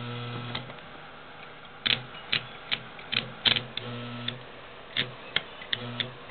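Stick welding rod being struck on the work: the arc catches in short irregular crackling pops instead of burning steadily. A low steady hum comes and goes in short stretches between the pops.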